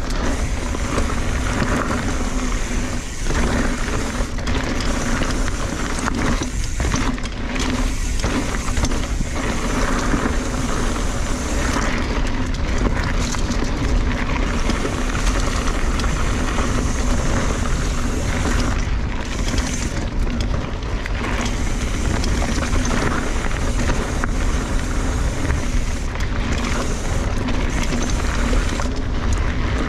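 A 2017 Kona Honzo hardtail mountain bike ridden hard along a dirt singletrack: steady tyre roar and bike rattle over the trail, with wind rushing over the chest-mounted camera's microphone.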